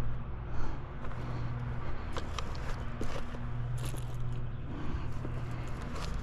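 Scattered light clicks and scrapes of someone moving about on an asphalt shingle roof, over a steady low hum that comes and goes.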